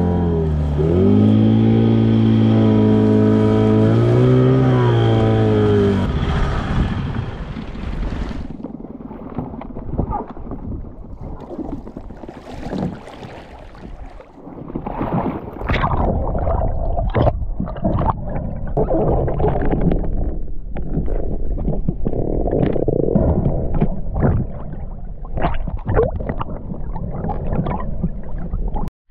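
Small outboard motor on an inflatable boat running, its pitch dropping and then rising as the throttle changes, and stopping about six seconds in. Then water splashing and sloshing, turning into the bubbling and clicking of a diver underwater.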